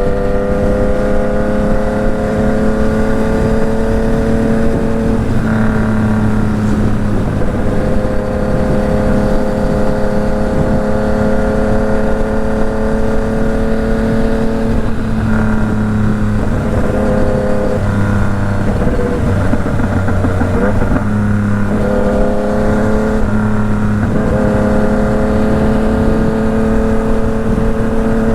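Yamaha MT-09's inline three-cylinder engine running under way, its note slowly climbing as the bike pulls. The revs break off and pick up again several times, with a choppier stretch in the second half.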